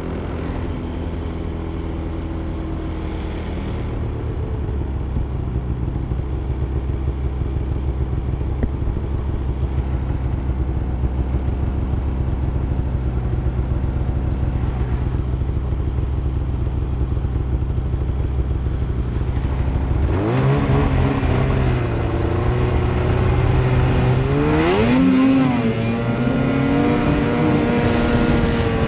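Snowmobile engine idling steadily, then about two-thirds of the way through revving up as the sled pulls away. Its pitch rises in two steps and settles at a higher, steady running note.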